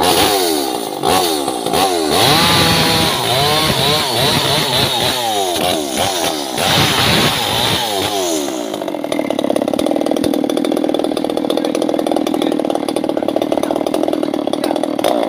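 Two-stroke chainsaw revved up and down over and over while cutting brush and small wood, each rev a rise and fall in pitch. About nine seconds in it settles to a steady idle.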